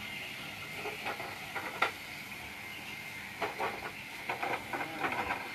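Steady hiss of cooking on a row of portable gas stoves, with spatulas clinking and scraping against the pans, more often in the second half.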